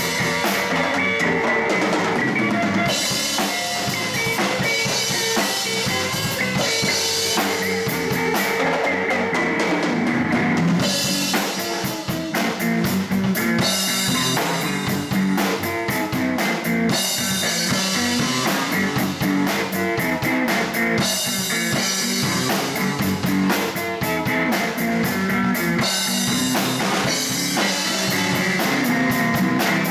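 Live blues band playing: electric guitar, electric bass and a Ludwig drum kit with bass drum and cymbals keeping a steady beat.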